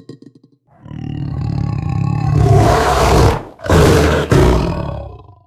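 Big cat roar sound effect, meant for a black panther: a growl builds for about two seconds into a loud roar, breaks off briefly, then a second roar comes and fades out.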